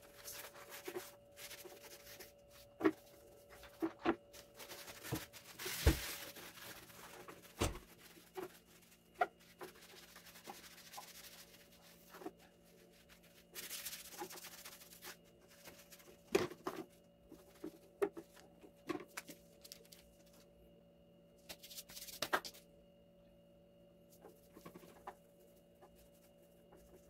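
Intermittent scrubbing and wiping on the metal burner of an electric hot plate: a scouring pad and a tissue rub off rust, with scattered light knocks and clicks as hands handle the hot plate. A faint steady hum runs underneath.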